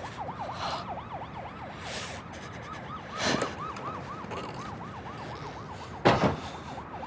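A siren in a fast yelp, its pitch sweeping up and down about three to four times a second. Two brief louder bursts of noise come over it, one mid-way and one near the end.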